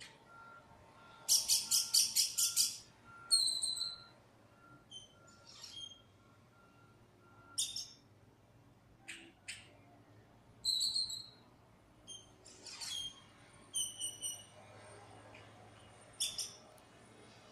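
A black bird calling: a quick rattle of about eight clicking notes a couple of seconds in, then scattered short whistles, chirps and squawks with pauses between them.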